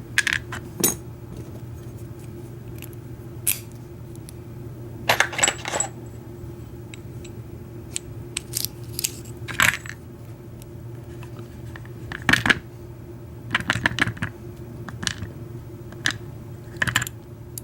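Scattered sharp metallic clicks and small clatters from an American Lock 1100 padlock being taken apart, its small pins and parts dropping onto a hard surface, some singly and some in quick little runs.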